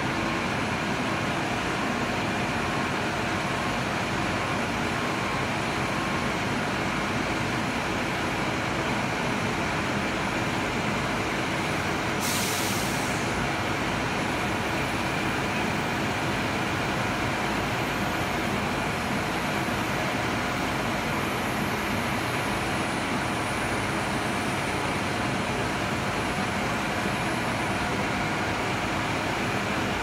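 Concrete pump truck's diesel engine running steadily under load, driving the hydraulics as the pump boom is unfolded. A short hiss of air cuts in about twelve seconds in.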